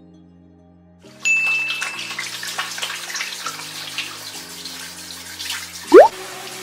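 Soft background music chords. About a second in, a loud watery splashing hiss with a brief high ding starts and keeps going. Near the end comes a short rising whoosh, the loudest sound, marking a whip-pan transition.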